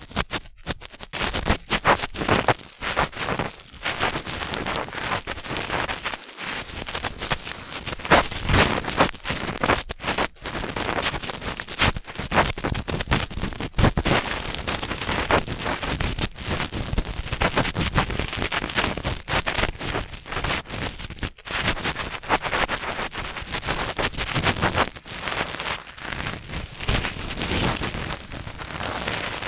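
Cotton swabs rubbing and scraping inside the ear of a binaural ear-shaped microphone: a close, continuous crackling and rustling with frequent sharp clicks.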